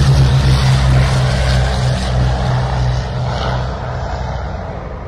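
Aircraft engine drone with a low pulsing beat, fading away steadily toward the end.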